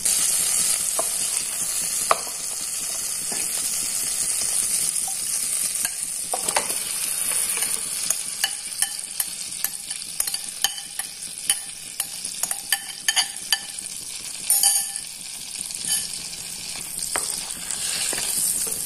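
Butter frying in a hot pan with a steady sizzling hiss. Marinated chicken then goes in and is stirred with a wooden spatula, which taps and scrapes against the pan in quick clicks over the sizzle.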